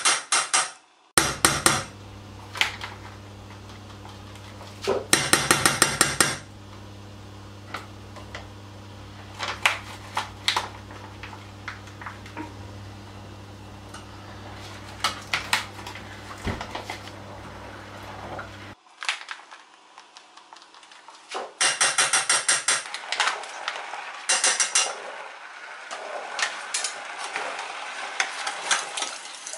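Spoon stirring in a pot and clinking against its sides, in fast runs of clinks with scattered single knocks of utensils. A steady low hum sits under the first part and cuts off abruptly about two-thirds through.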